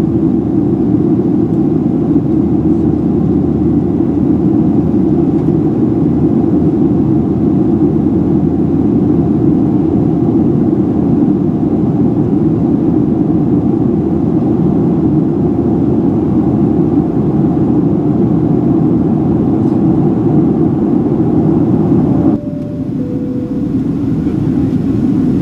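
Steady cabin noise of a Boeing 737-700 in flight, a loud even rush heard from inside the cabin. About 22 seconds in, the noise drops abruptly. Right after that, a two-note falling cabin chime sounds.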